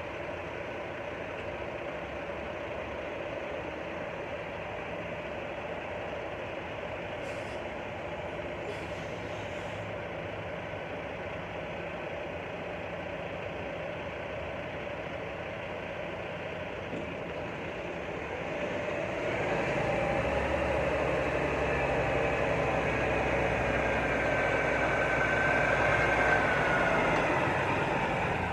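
Steady hum of an idling diesel truck engine, then about nineteen seconds in a semi-truck hauling a trailer drives up close, its diesel engine running louder with a deep rumble and a wavering whine.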